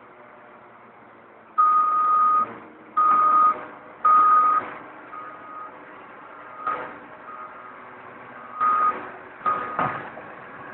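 Heavy mining machinery running under an electronic backup alarm giving long beeps at one steady pitch: three loud ones in the first half, then fainter ones at uneven gaps. A sharp knock comes about two-thirds of the way in, and a heavier thud near the end.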